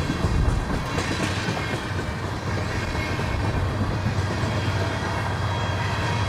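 Crude oil freight train of tank cars passing steadily on the rails, its wheels and cars making a continuous, even sound with no pause.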